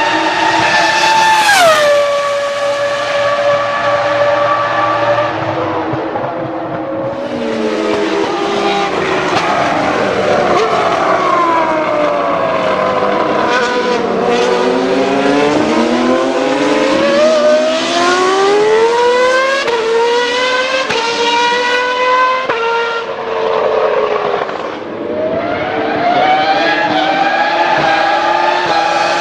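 A car engine running at high revs, its pitch sliding down through the first half and then climbing back up, with more than one engine note overlapping in the middle.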